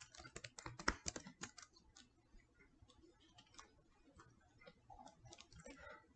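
Faint typing on a computer keyboard: a quick run of keystrokes for the first two seconds, then scattered single key taps.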